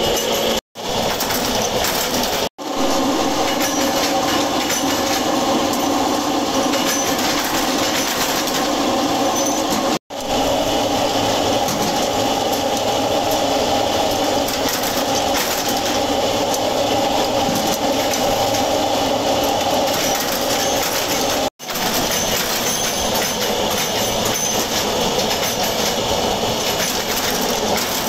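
Dense, steady mechanical clatter and rumble of bolt-forging shop machinery, with many small metallic rattles. It breaks off abruptly into brief silence four times.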